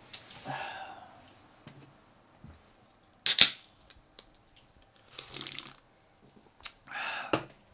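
A single sharp bang about three seconds in, with a few faint clicks and short breathy, hissing sounds before and after it.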